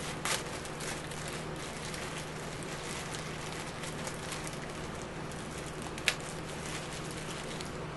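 A small plastic parts bag crinkling and rustling as it is opened and handled, with irregular crackles and one sharper click about six seconds in, over a steady hiss and low hum.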